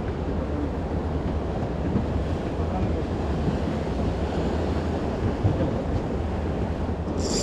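Wind buffeting the microphone over sea water washing around a small boat, with a steady low rumble underneath. A brief high-pitched chirp near the end.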